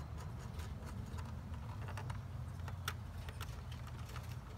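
Light, scattered clicks and ticks of a screwdriver and wire working at the plastic terminal block of a pool pump's wiring compartment as a power lead is fitted and its terminal screw tightened. A steady low hum runs underneath.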